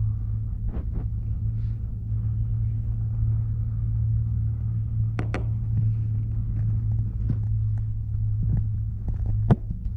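Steady low rumble inside a tricable gondola cabin travelling along its cables, with a few faint clicks and knocks, a pair about five seconds in and a sharper knock near the end.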